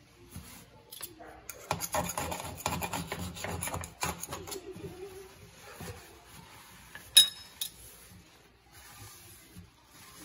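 A rag or paper towel scrubbing along the rim of a stainless steel sink to wipe away old caulk residue. It rubs in quick, vigorous strokes for about two seconds, then more lightly, with one sharp metallic tick about seven seconds in.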